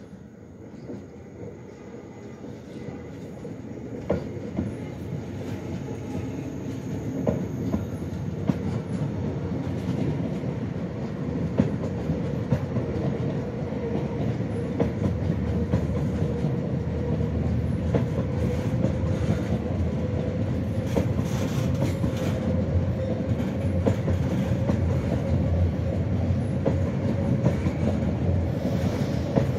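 Lötschberg car-shuttle train of covered double-deck car-carrier wagons rolling past close by, building to a steady rumble over the first fifteen seconds or so. Wheels clack over the rail joints, with a thin steady whine above the rumble.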